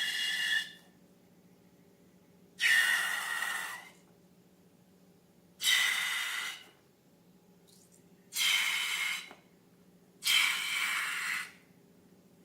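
Air hissing out of a rubber balloon's neck in short bursts of about a second each, five times, some with a thin squealing tone.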